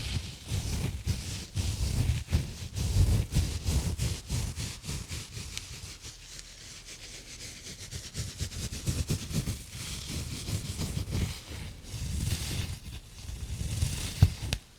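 Exfoliating gloves rubbing and scratching close around a microphone: fast, dense scrubbing strokes with a low rumble under a hiss. The strokes go quieter for a couple of seconds in the middle, and there is one sharp knock shortly before the end.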